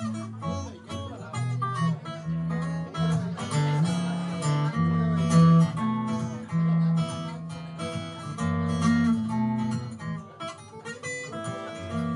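Acoustic guitar played solo, with bass notes and a melody sounding together and many short, crisp string attacks.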